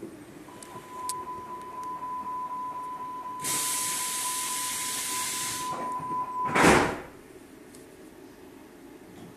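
Hamburg U-Bahn train's doors closing: a steady high warning tone sounds for about six seconds, a hiss of air joins it in the middle, and then the doors thud shut.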